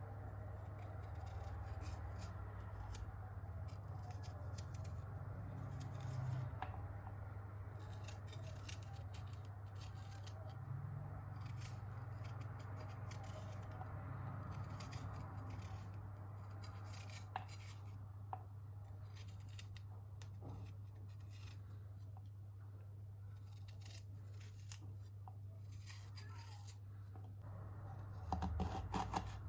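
Many short, crisp snips and rustles from cutting and handling ingredients, over a steady low hum.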